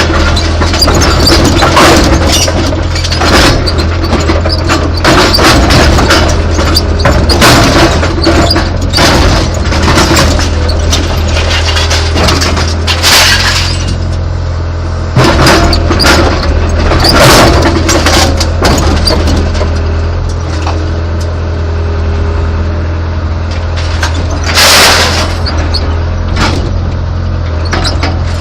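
Caterpillar excavator's diesel engine running steadily, heard from the cab, with many sharp metallic clanks and knocks as the bucket and thumb grab and strike a three-cylinder two-stroke outboard motor to tear its flywheel off. The loudest knocks come about 13 seconds in and again near 25 seconds.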